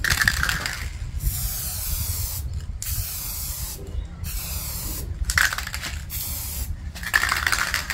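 Aerosol spray-paint can spraying in about six short hissing bursts, each a second or so long, with brief pauses between them. Wind rumbles on the microphone underneath.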